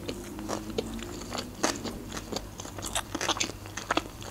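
Close-miked mouth chewing a bite of sushi roll: irregular crunches and wet mouth clicks.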